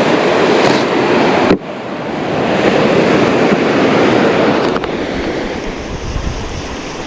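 Ocean surf washing onto the beach, a steady rushing that breaks off suddenly about a second and a half in and then swells again. Wind buffets the microphone near the end.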